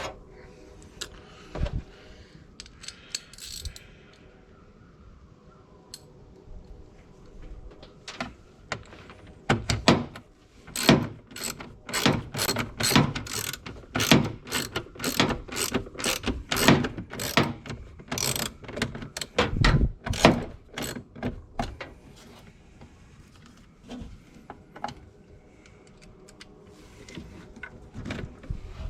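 Socket ratchet clicking in quick back-and-forth strokes, about two bursts of clicks a second through the middle, with scattered clicks and tool handling before and after.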